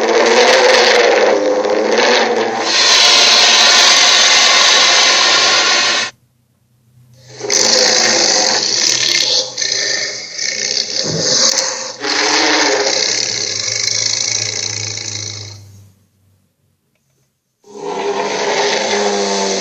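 Cartoon sea monster roaring: three long, pitched roars with short silences between them, the first about six seconds and the second about nine.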